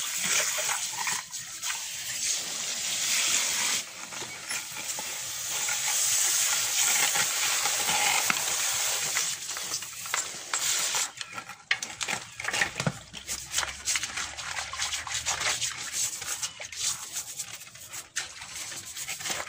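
Water running from a garden hose into a shallow clay basin while a pet turtle's shell is scrubbed with a plastic brush. About eleven seconds in, the steady rush of water gives way to quick scrubbing strokes, splashes and small knocks against the shell and basin.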